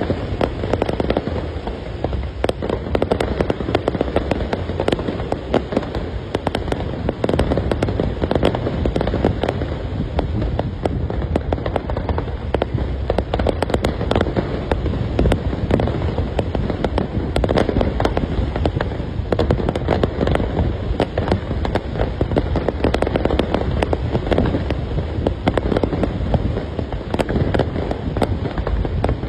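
Fireworks display going off: a dense, unbroken barrage of bangs, many bursts a second with no pause.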